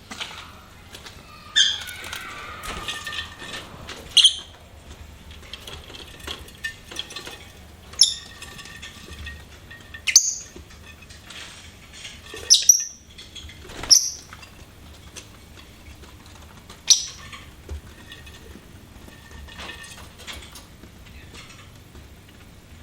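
Lovebirds calling: sharp, high-pitched chirps every couple of seconds, about eight in all, with softer chattering between them.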